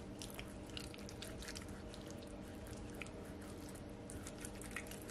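Faint wet squelching and small irregular clicks of fingers rubbing a wet seasoning paste into the belly cavity of a raw tilapia.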